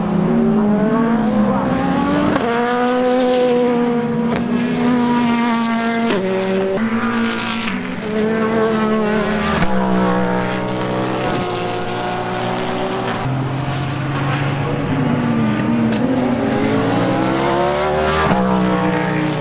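Prototype race cars running through a corner, their engines revving up and down with sudden jumps in pitch at the gear changes and a long rising pull under acceleration near the end.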